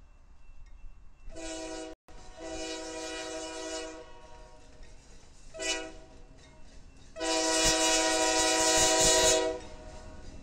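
Union Pacific diesel locomotive's multi-note air horn sounded for a grade crossing: long blasts, a short one, then a final long blast, the last the loudest, over the low rumble of the approaching train.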